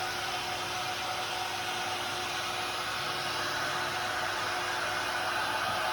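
Vacuum cleaner motor running steadily, a constant rushing hiss with a fixed whine.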